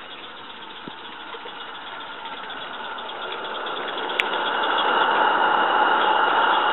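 Small gas-fired live-steam garden-railway locomotive running through a tunnel, getting steadily louder as it approaches, with a faint rapid beat and one sharp click about four seconds in.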